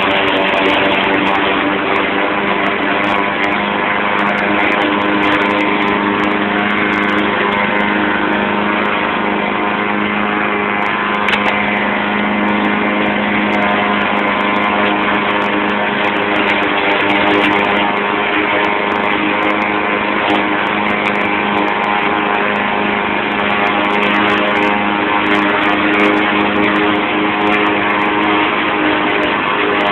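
YardMan push mower's 159cc PowerMore engine running steadily at constant speed while cutting grass.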